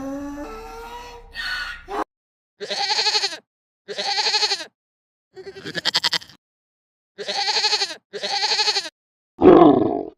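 Repeated bleating from a sheep or goat: five separate calls of under a second each with short gaps, one of them quavering. A different, pitched sound runs through the first two seconds, and a louder, deeper call begins near the end.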